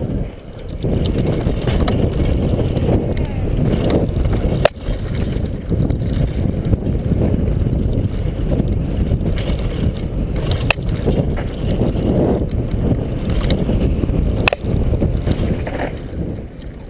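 Downhill mountain bike ridden fast over a rough dirt trail: a constant rumble and rattle of knobby tyres, suspension and chain, buffeted by wind on a helmet-mounted camera, with three sharp knocks as the bike hits bumps.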